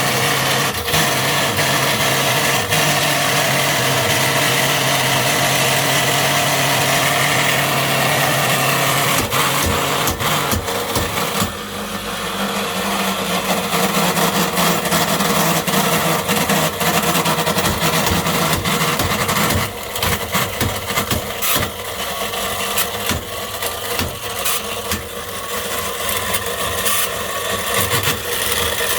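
Sewing machine motor running flat out on 400 V with a steady whine. About twelve seconds in the tone changes and it turns rough, with a rising clatter of clicks and knocks, heavier in the last third. This is the sign of its bearing failing mechanically.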